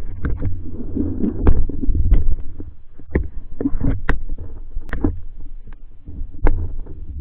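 Muffled low rumble of water moving around a submerged camera housing, with scattered sharp clicks and knocks against the housing, irregular at about one or two a second.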